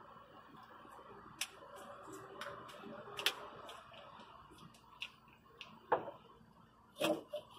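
Scattered sharp clicks and clinks of a hand wrench and metal battery hardware being handled, irregularly spaced, the loudest few about six and seven seconds in, over a faint steady hum.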